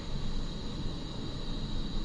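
iOptron GEM28 mount's declination motor and belt-driven worm gear slewing at top speed, a steady high whine over a low drone with no knocking. The drive belt has been re-tensioned, which cured the clunk.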